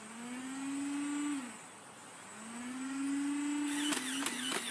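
Modified Nerf Rhino-Fire's motorized flywheels spinning up twice, each a whine that rises slightly in pitch for about a second and a half, then a few sharp clicks near the end.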